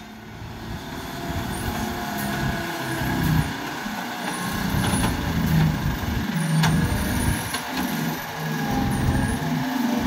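Diesel engine of a heavily loaded Ashok Leyland multi-axle truck running as it comes downhill round a hairpin bend, growing louder as it approaches.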